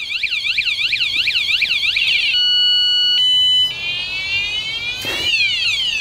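SuperInk wireless bike alarm set off by a knock to the bike, its siren loud and cycling through patterns: a fast warble, then a steady multi-tone blare about two seconds in, then repeated rising sweeps. A brief knock about five seconds in.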